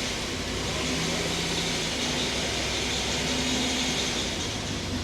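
Freshly rebuilt GM LS4 5.3-litre V8 running steadily at idle.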